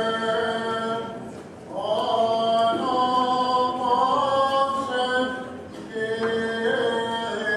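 Unaccompanied Greek Orthodox funeral chant sung by a choir in long held phrases, with short breaks about one and a half and five and a half seconds in.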